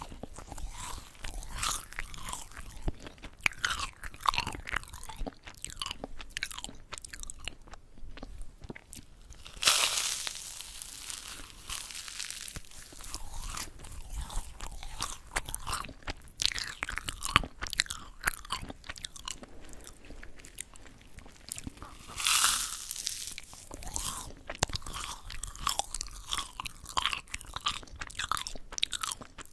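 Close-miked bites and chewing of yugwa, Korean fried glutinous-rice cookies coated in puffed rice: dense crisp crunching and crackling, with two louder crunches about a third of the way in and again about three-quarters through.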